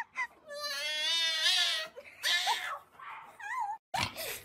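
A small bulldog-type dog crying and screaming in long, wavering, almost human-sounding wails while being held and handled, then a couple of shorter warbling yelps. It is protest at being held, not pain: the dog is just very vocal.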